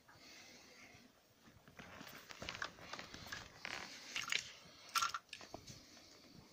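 Rustling and crackling handling noise from a handheld phone being moved about, with fabric or fingers rubbing near the microphone and irregular sharp clicks, the loudest click about five seconds in.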